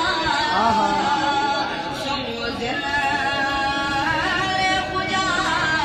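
Singing with music: a voice carries a melody in long, wavering notes that glide up and down without break.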